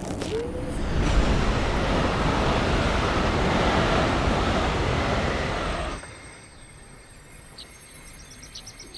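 Loud, steady rushing rumble of a TGV high-speed train running, which cuts off abruptly about six seconds in to a much quieter background with a few faint chirps.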